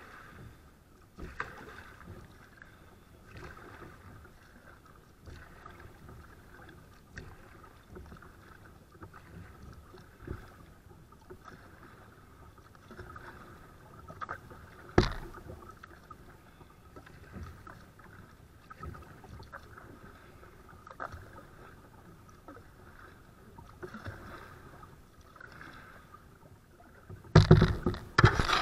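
Kayak paddle strokes in calm creek water, soft dips and drips coming about every two seconds. A single sharp knock sounds about halfway through, and a loud rush of noise starts just before the end.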